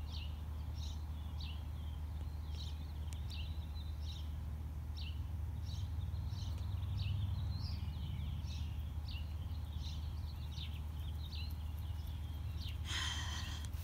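Small birds chirping, short high chirps about once or twice a second, over a steady low rumble. A brief rustle comes near the end.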